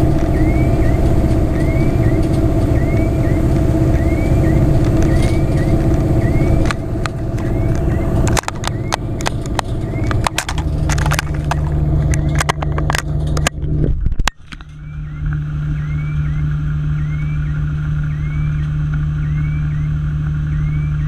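Fire engine tanker driving, heard inside the cab: engine and road noise with a faint high chirp repeating about twice a second. A run of clicks and knocks comes about midway, then after a brief dip the sound settles into a steadier low hum.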